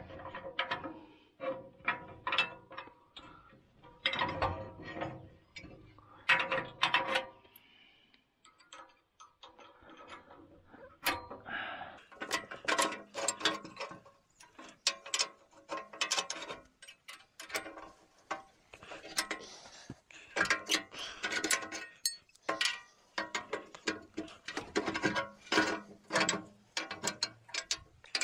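Steel clinks, knocks and scrapes as a box blade's ripper spikes and their pins are handled and reset in their slotted holders. The metal taps come irregularly, some ringing briefly, with a quieter stretch about eight to eleven seconds in.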